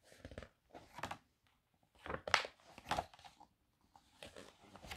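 Pages of a picture book being handled and turned: several short rustles of paper.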